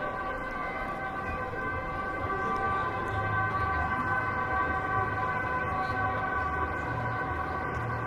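Several steady tones held together like a sustained chord, with low notes pulsing in a rhythm from about three seconds in.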